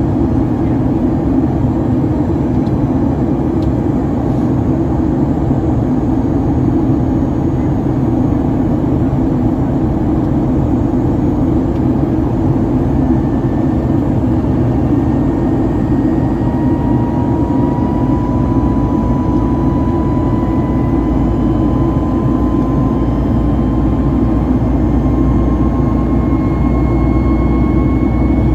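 Cabin noise of a Boeing 737 MAX 8 in its climb-out, heard from a window seat beside its CFM LEAP-1B turbofan engine: a steady, loud roar of engine and airflow. From about halfway through, a faint whine slowly rises in pitch.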